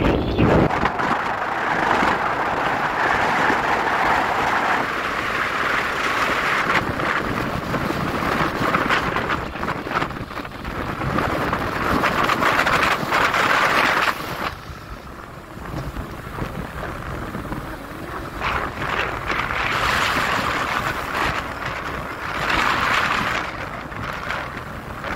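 Wind buffeting the microphone of a camera moving along a road, over the running noise of the vehicle carrying it. The rush eases for a few seconds about halfway through, then builds again.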